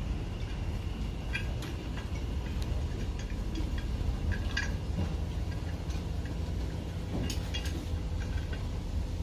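Scattered sharp metallic clinks and taps of hand tools on a marine diesel engine being repaired, a few seconds apart, over a steady low rumble of machinery.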